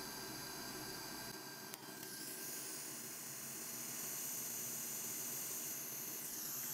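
Steady faint hiss, brighter and stronger in its upper range from about two seconds in until shortly before the end, with a faint click just before it strengthens.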